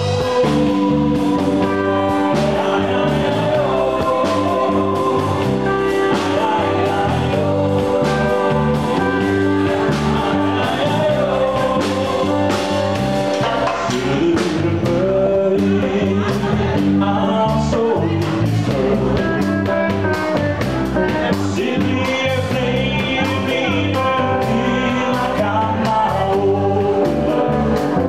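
Live band music: a man singing into a handheld microphone over a drum kit and band, with a steady beat.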